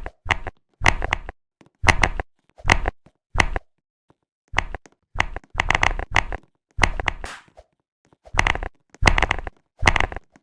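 Computer keyboard keys being typed: quick runs of clicking keystrokes in short bursts, with brief pauses between them.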